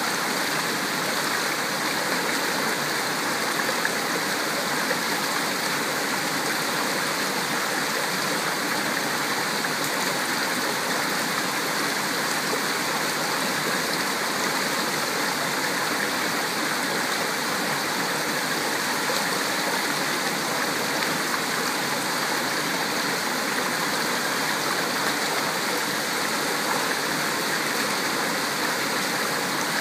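Shallow rocky stream rushing steadily over stones, a constant, even water noise.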